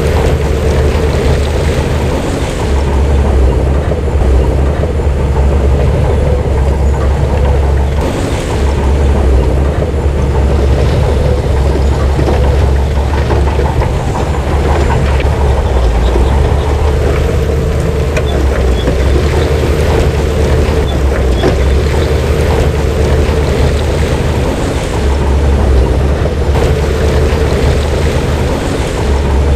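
Heavy diesel earthmoving machinery running steadily under load: a deep, continuous engine rumble with a steady hum and some light clanking.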